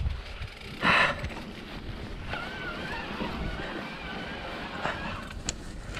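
Riding noise from a mountain bike on a muddy trail: wind buffeting the microphone over the rumble of the tyres, with a short loud hiss about a second in and a faint wavering squeal later on.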